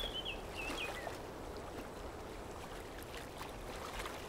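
Faint outdoor ambience: a steady low hiss, with a bird chirping a few times in the first second and a few faint knocks later on.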